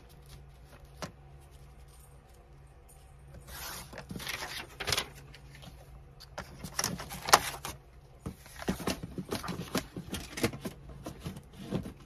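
Paper being handled and rustled in short bursts, with a few sharp clicks, the loudest about seven seconds in. The first few seconds are quieter.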